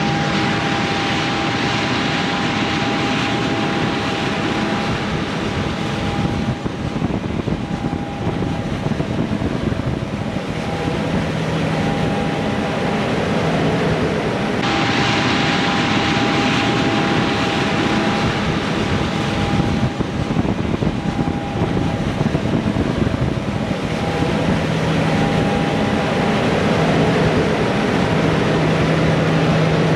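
Heavy harvest machinery running steadily at high load: loud engine and mechanical noise with a steady whine that drops in and out, and a deeper hum that joins now and then in the second half.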